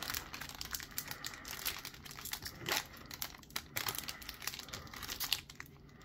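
Foil Pokémon booster pack wrapper crinkling and tearing as fingers work at its top edge to rip it open, in irregular small crackles.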